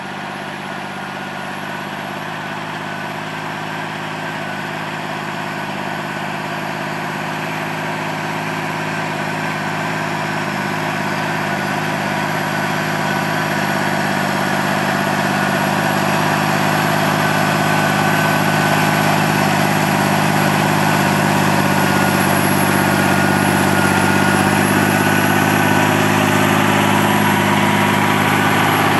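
John Deere 8200 tractor's six-cylinder diesel engine running steadily, with a thin high whine over it, getting steadily louder as the tractor draws near.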